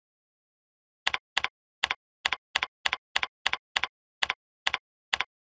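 Computer keyboard being typed on: about a dozen separate keystrokes, each a quick double click of the key going down and coming back up, starting about a second in.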